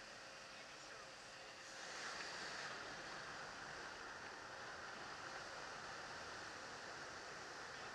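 Steady rush of wind and aircraft noise inside a skydiving plane's cabin with the jump door open, growing a little louder and brighter about two seconds in as jumpers go out the door.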